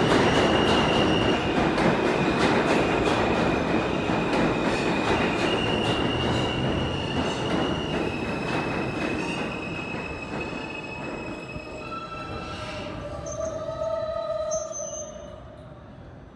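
New York City Subway R160 train braking into the station: wheels rumbling with a steady high-pitched squeal, the noise fading as the train slows. A few steady tones sound just before it comes to a stop.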